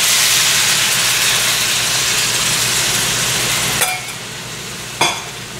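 Balsamic glaze of vinegar, honey and soy sauce sizzling loudly as it hits a hot skillet of browned chicken thighs, a steady hiss of liquid boiling off. About four seconds in it drops to a quieter sizzle, with a light knock there and another a second later.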